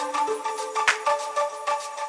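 Background music with a steady beat over held notes.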